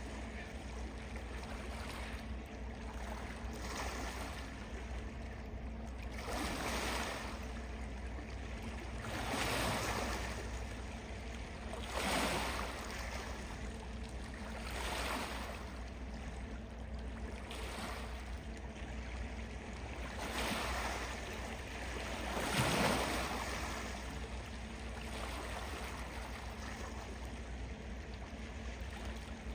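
Small waves washing in and receding about every two to three seconds, over a steady low rumble.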